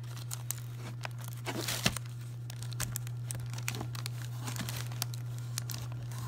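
Plastic packaging, a poly mailer bag and air-cushion bags, crinkling and crackling as it is handled and pulled at by hand to open it without a knife, with a short tearing stretch about a second and a half in.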